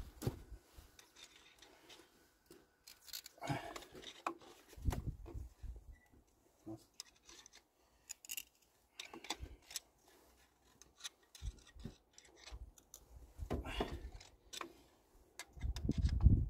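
Scattered light clicks, scrapes and a few knocks of hand tools being handled over a car engine: a screwdriver being fitted and worked on engine parts.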